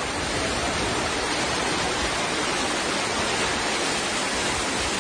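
Fast-flowing floodwater rushing steadily, a dense even noise with no breaks.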